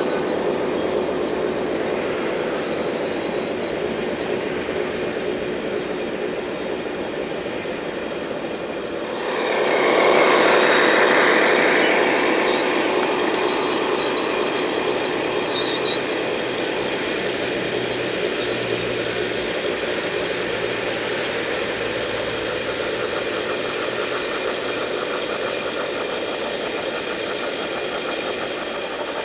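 Large-scale garden railroad freight cars rolling along outdoor track, a steady rolling noise with wheel squealing and squeaking, typical of dry axles on cars that need oil. It grows louder about nine seconds in as the train passes close.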